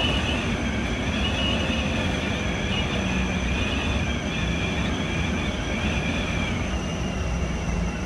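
Tour bus driving at steady speed, its engine and tyre noise heard from inside the cabin as a constant low rumble. A high, slightly wavering whine runs over the drone.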